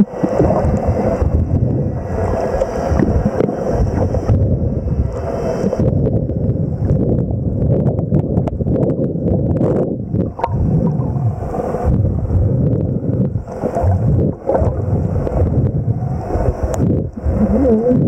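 Underwater water noise: a steady rushing and gurgling of water against the camera as it moves through the sea, with a few clicks and knocks.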